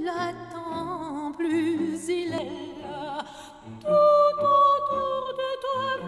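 Operatic singing by a woman with wide vibrato over low instrumental accompaniment, played back over SoundLab electrostatic loudspeakers and picked up by a microphone in the listening room. A short lull just before the four-second mark gives way to a louder, long held high note.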